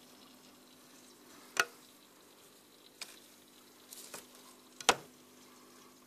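A few sharp clicks and knocks, the loudest about a second and a half in and again near five seconds, with smaller ones between, over a faint steady hum.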